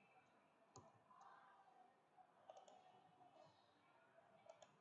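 Near silence broken by a few faint computer mouse clicks: about a second in, about halfway, and near the end.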